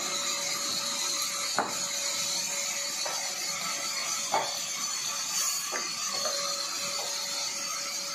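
Vertical band saw running steadily with a constant hiss, with several sharp knocks of wooden planks being set down and pushed across the saw table.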